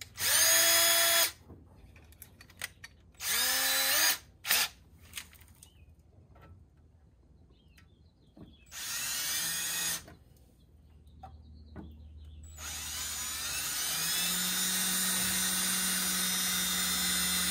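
Cordless drill with a 1/4-inch bit drilling holes through an outboard motor's skeg for skeg-guard bolts. It runs in several short bursts, each spinning up in pitch, then in one long steady run of about five seconds near the end.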